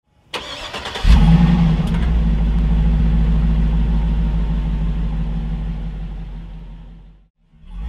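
V8 engine of a Hummer H2 stretch limousine starting: a short crank, then it catches about a second in and runs steadily with a deep, even sound, fading out shortly before the end.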